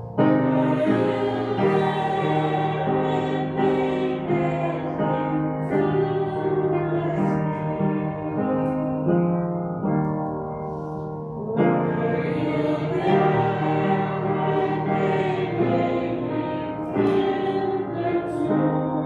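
Slow church music in sustained, held chords. It starts just after the beginning, and fresh phrases come in about twelve and seventeen seconds in.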